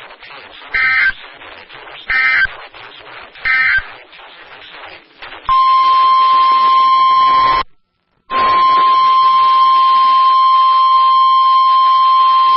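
Three short warbling data bursts over radio hiss, the EAS/SAME end-of-message code closing a weather radio warning. Then comes the loud, steady 1050 Hz NOAA Weather Radio alert tone, which cuts out briefly near the middle and comes back.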